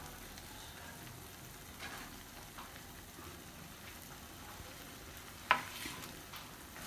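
Corn halwa cooking in ghee in a nonstick frying pan, a faint steady sizzle over low-medium heat, the ghee separated on top as the halwa nears done. A few light clicks sound over it, the sharpest about five and a half seconds in.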